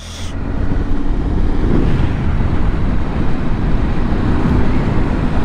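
Triumph Tiger 800 motorcycle on the move: steady wind noise on the microphone over the running engine.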